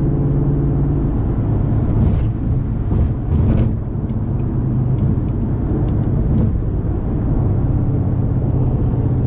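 Car being driven: a steady engine hum over road noise. The engine note drops about a second in and rises again near the end, with two short rushes of noise around two and three and a half seconds in.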